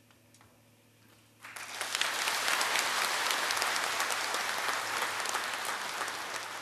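Crowd applauding, breaking out suddenly about a second and a half in and keeping up steadily, easing off slightly near the end.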